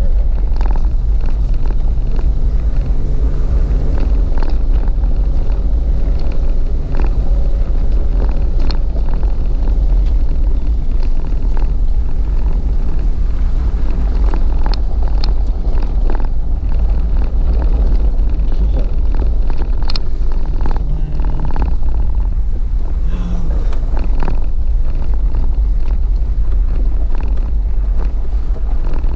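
A vehicle driving on a rough gravel road: a steady low rumble of engine and tyres, with frequent knocks and rattles from bumps.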